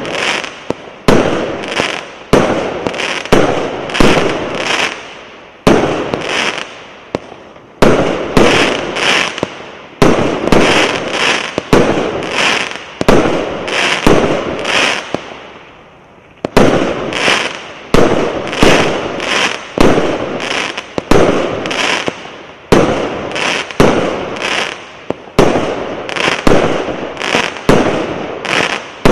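A 49-shot, 1-inch multi-shot fireworks cake firing in quick succession, about two shots a second, each a sharp report that fades away, with a short gap about halfway through.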